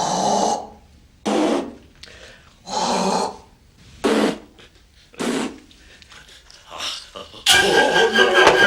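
A man's short wordless vocal noises, grunts and breathy exclamations, about six in a row with pauses between them. Music comes in near the end.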